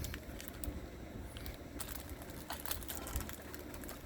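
Light handling noise: a few scattered small clicks and rustles as a small case and its contents are turned over by hand, over a low steady hum.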